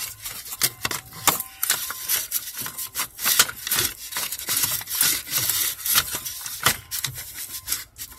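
Irregular clicks, taps and scraping of steering-column parts being handled and worked loose by hand, with rubbing between the knocks.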